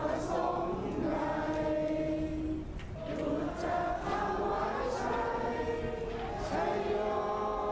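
A large crowd singing together, many voices holding long notes that shift in pitch every second or so.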